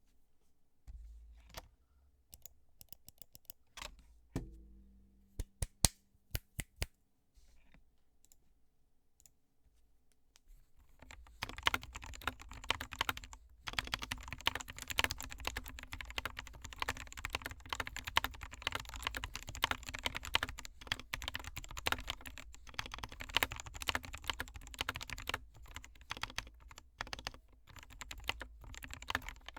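Typing on an SK61 60% keyboard with lubed Gateron Optical Black linear switches under pudding keycaps: a few scattered single key presses at first, then, about a third of the way in, steady fast typing.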